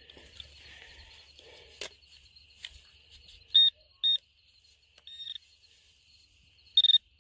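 Garrett ProPointer AT pinpointer metal detector beeping as it is swept over a hog carcass, signalling metal: more bullet fragments in the body. Short high beeps come about three and a half and four seconds in, a longer one a little past five seconds, and a quick double near the end.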